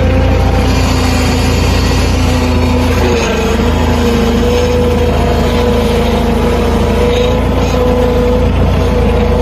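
Engine running steadily under a heavy low rumble, with its pitch dipping briefly about three seconds in.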